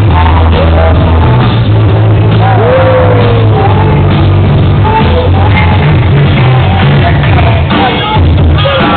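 Loud music with a heavy, steady bass line and a sung vocal line, played over a sound system for a breakdance battle.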